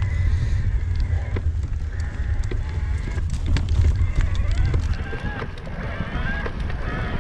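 Mountain bike riding along a leaf-covered dirt trail: heavy wind rumble on the microphone, with frequent clicks and rattles from the bike over the ground and a faint wavering high tone.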